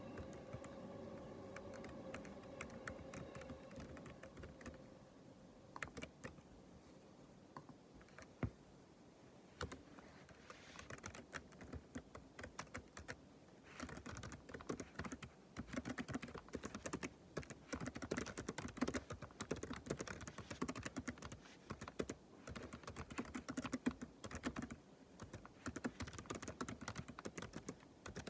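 Typing on a computer keyboard: scattered key clicks at first, turning about halfway through into continuous fast typing. A faint steady hum fades out in the first few seconds.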